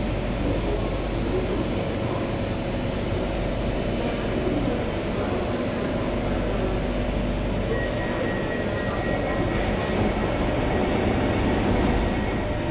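Stationary C751A metro train standing at an underground platform with its doors open: a steady hum from the car's equipment, with a thin constant high-pitched tone over it.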